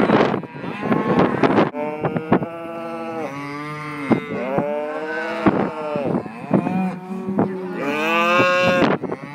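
Several cattle mooing, with long overlapping calls from about two seconds in. Wind noise on the microphone in the first couple of seconds.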